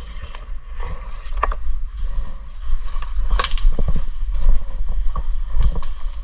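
Steady low rumble of movement on a body-worn microphone, with scattered sharp clicks and knocks, a few of them louder, about a second and a half in, near the middle and towards the end.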